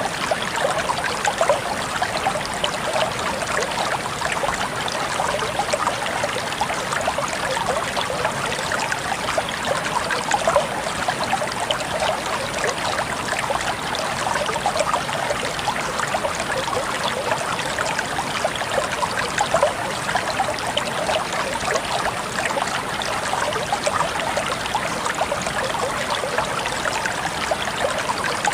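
Shallow water flowing and trickling steadily, with a dense patter of small splashes and bubbling and no pauses.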